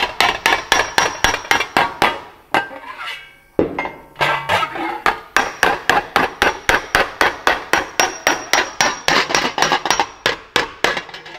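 Body hammer tapping a freshly gas-welded sheet-steel seam against a dolly held underneath, in quick, light, evenly spaced metallic blows at about five a second, with a short pause about three seconds in. The warm weld bead is being planished flat and the seam aligned.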